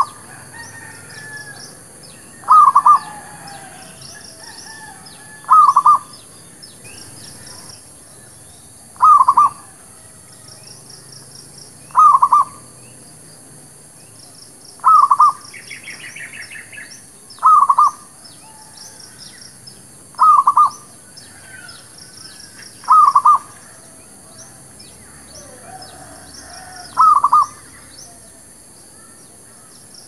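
Zebra dove (merbuk, perkutut) cooing: a short burst of quick staccato notes, repeated about every three seconds.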